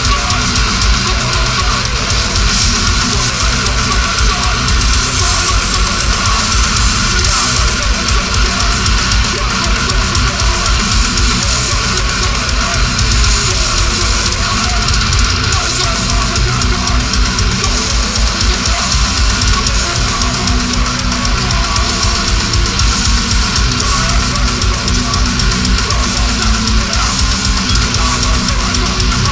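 Death metal band playing live at full volume: heavily distorted electric guitars through Marshall amplifiers over drums on a Tama kit, loud and continuous without a break.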